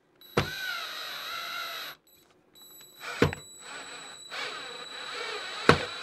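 Cordless drill/driver running in two bursts of a second or more each, with a steady high whine. There are sharp clicks as it starts, a little after three seconds, and near the end.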